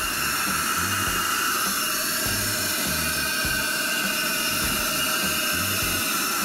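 Stainless-steel Marumerizer spheronizer running empty: a steady high whine and hiss from its motor and spinning friction plate, over background music with a low bass line.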